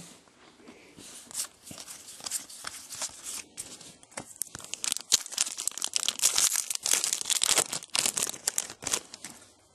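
A trading-card pack's wrapper torn open and crinkled by hand: an irregular crackling that gets louder and busier in the second half.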